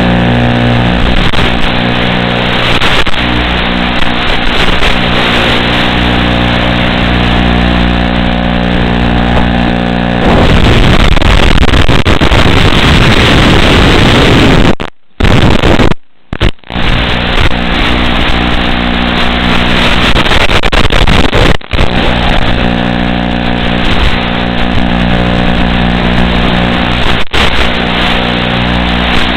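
FPV quadcopter's brushless motors whirring steadily, heard through the analog video link. About ten seconds in the weak signal turns the sound into loud static hiss, with a few brief drop-outs to silence, before the motor sound returns.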